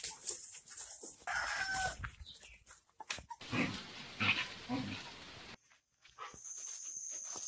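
Backyard animal sounds: chickens clucking, then young dogs scuffling and tearing at paper. After a cut near the end, a steady high-pitched tone.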